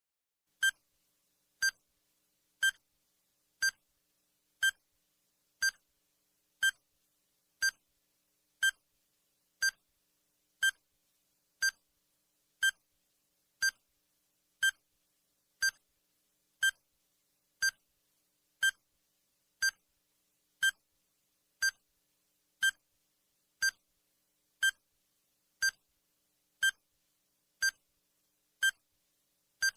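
Countdown timer sound effect: a short electronic beep once every second, each one the same pitch and length, with silence between.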